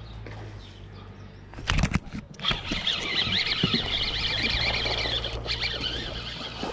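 Water splashing and thrashing from a hooked largemouth bass being fought to the boat. A sudden loud splash comes about a second and a half in, followed by a few seconds of continuous rough splashing, over a low steady hum.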